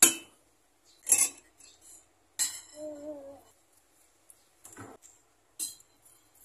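Metal spoon clinking against a ceramic noodle bowl, about five sharp clinks spaced over a few seconds.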